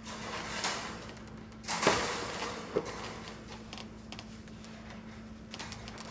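Welded-wire cattle panel knocking and rattling as it is handled, with two sharp knocks about two and three seconds in and lighter clicks around them, over a steady low hum.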